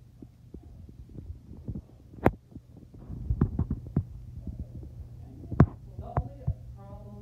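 A cat playing with a toy mouse on carpet: scattered soft taps and thumps, a sharper knock about two seconds in and a quick cluster of taps a little after three seconds, over a steady low hum.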